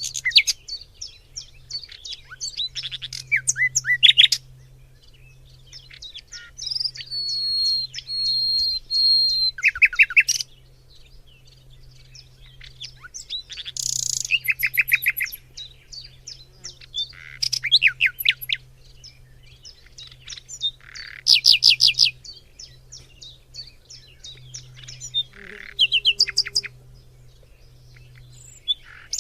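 Several birds singing in a forest chorus: bursts of rapid high chirps and trills from different singers, one holding a steady whistled note for a couple of seconds, over a faint low hum.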